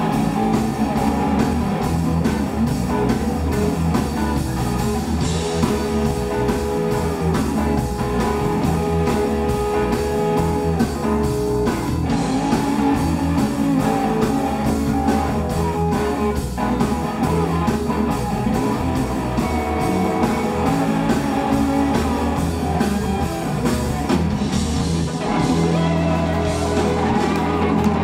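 Live electric blues band playing: electric guitars with held, bending lead notes over bass guitar and drum kit.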